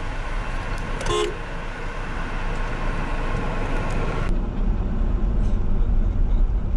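Car driving on a gravel road, heard from inside the cabin, with one short horn toot about a second in.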